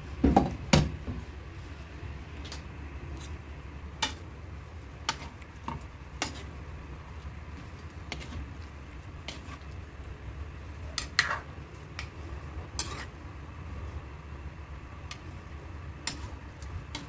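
A metal ladle clinking and scraping against an aluminium wok as chicken and papaya in coconut milk are stirred, in scattered knocks, the loudest two in the first second. A steady low hum runs underneath.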